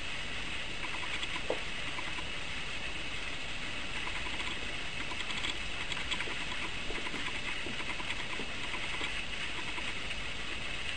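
Faint rustling of fur and soft licking as a Bengal cat grooms puppies, heard as small irregular ticks over a steady hiss.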